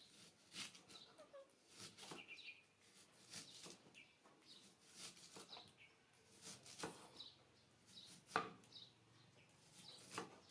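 Knife cutting a vegetable held in the hand, with no board: faint, irregular slicing strokes about once or twice a second, the sharpest a little after eight seconds. Faint short high chirps come in between the cuts.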